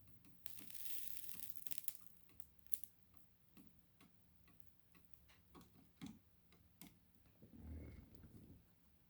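Irregular light clicks and taps of small hard parts being handled, with a brief rustle from about half a second to two seconds in and a dull low bump near the end.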